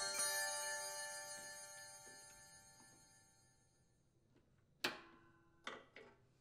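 An alert chime sound effect struck once, ringing with many bright overtones and fading out over about three seconds; then two short clicks near the end, about a second apart.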